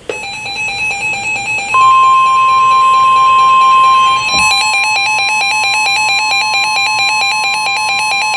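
Emergency alert tones from a weather radio: the NOAA Weather Radio 1050 Hz warning alarm tone comes in steady about two seconds in, over the receiver's own alert tones, which change to rapid, evenly pulsing beeps about four seconds in. The tones announce an incoming severe thunderstorm warning.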